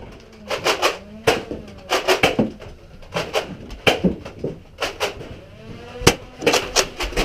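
Foam-dart battle sounds: Nerf blasters firing and darts striking, heard as sharp clicks and knocks, often in quick clusters of three or four, with faint distant voices.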